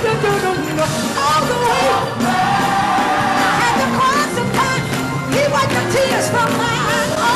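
Live gospel music: voices singing over a band, with steady bass notes underneath.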